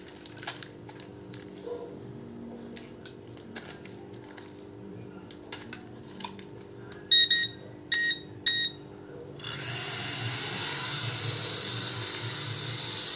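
Small toy quadcopter drone: light handling clicks, then three short high electronic beeps about seven to eight and a half seconds in. About nine and a half seconds in, its four small propeller motors start with a loud, steady high-pitched whir as it takes off and hovers.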